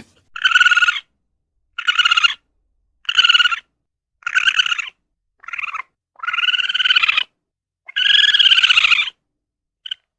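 A kitten mewing over and over, high-pitched, about one mew a second, the later ones drawn out longer.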